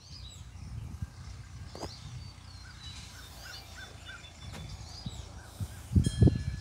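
Birds calling and chirping over a low, steady rumble of wind. Near the end, wind gusts thump on the microphone and a wind chime starts ringing.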